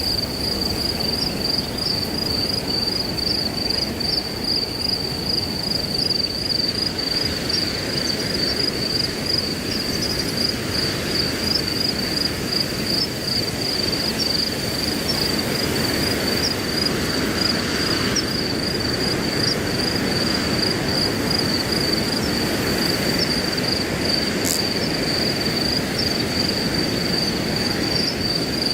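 Crickets trilling steadily in a high, rapidly pulsing chorus over a continuous rush of wind through grass. Near the end comes one brief high chirp.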